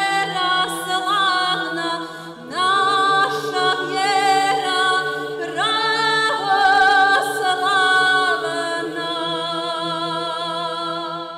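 Church choir singing an Orthodox-style chant a cappella over a steady low held drone note, a new phrase swelling in about two and a half seconds in.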